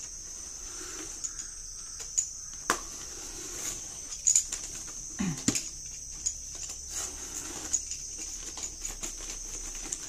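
Small blade slicing and scraping along the packing tape of a cardboard parcel, making irregular scratches and sharp taps against the box, loudest about halfway through. A steady high-pitched hiss runs underneath.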